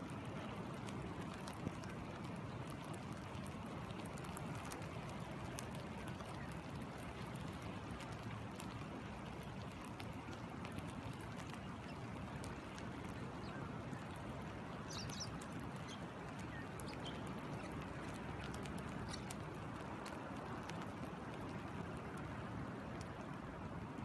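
Steady rush of a flowing stream with rain falling on the water, full of fine drop ticks. A bird chirps briefly a few times, about halfway through and again a little later.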